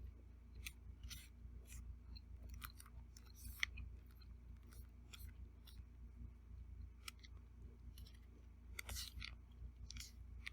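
Eating utensils clicking and scraping against a plate, in short irregular taps with a longer scrape about nine seconds in.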